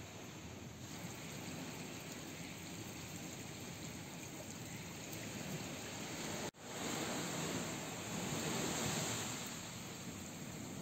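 Steady rushing noise that drops out for an instant about six and a half seconds in, then carries on slightly louder.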